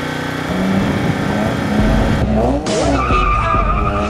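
Race car on a slalom course, its engine revving up and down while its tyres squeal through the turns in the second half.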